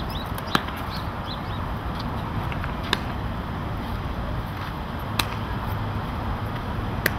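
Baseballs popping into leather gloves during a game of catch: four sharp pops a little over two seconds apart, over a steady outdoor rumble.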